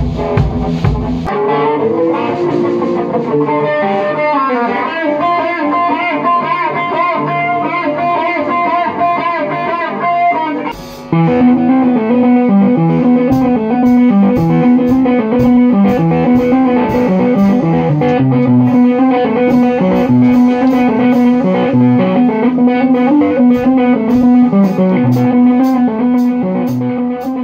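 A second of drum kit, then an electric guitar playing melodic lead lines with bends. After a short break about eleven seconds in, the guitar plays a busier riff over a steady held note, fading out at the end.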